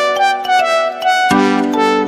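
Background music: a light melody of plucked and keyboard-like notes, with a fuller chord coming in a little past halfway.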